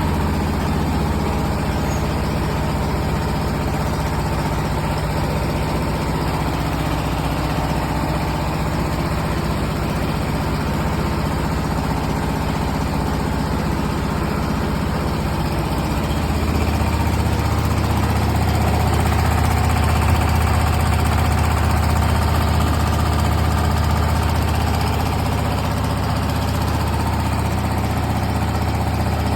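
Diesel engine driving a rice huller, running steadily; its low note grows louder about halfway through.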